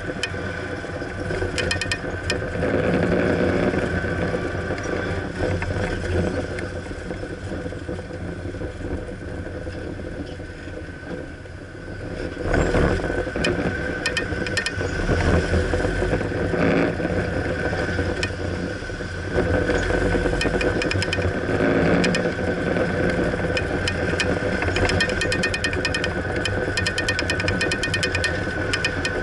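Car engine and road noise heard from inside the moving car, a steady rumble with faint ticking, getting louder about halfway through.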